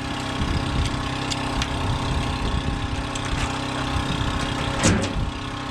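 A motor running steadily at idle, with a single sharp knock or clank about five seconds in.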